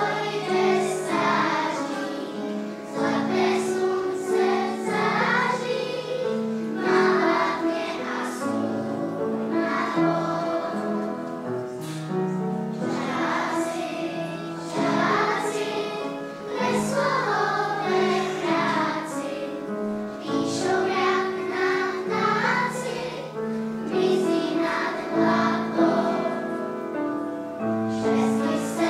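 A group of young children singing a song together, over held instrumental notes that carry on beneath the voices.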